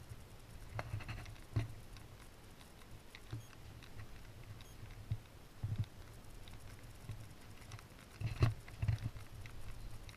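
Footsteps and knocks from someone walking through a submarine's narrow compartments: irregular soft thumps and light clicks, with a cluster of louder ones near the end, over a low steady hum.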